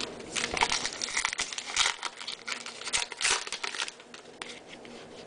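A baseball card pack's wrapper crinkling and tearing as it is opened by hand, a dense run of crackles that dies down after about four seconds.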